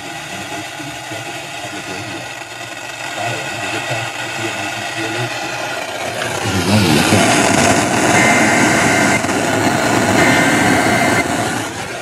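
Emergency Alert System SAME header data bursts coming over an FM car radio: buzzy digital screeches about a second long, two of them a second apart, opening a monthly EAS test. Vehicle engine noise runs underneath.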